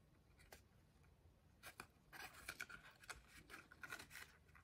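Faint rustling and light ticks of folded cardstock being handled between the fingers, growing busier about two seconds in.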